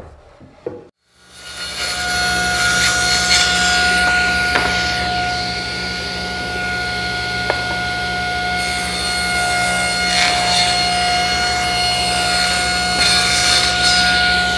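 Table saw running and ripping a glued-up maple and walnut panel into strips: a steady motor hum and blade whine with the noise of the cut. It starts about a second in.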